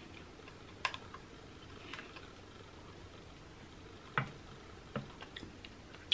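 Faint, scattered clicks and cracks of a king crab leg shell being handled and picked apart by hand to get at the meat, a handful of separate snaps with the sharpest about four seconds in.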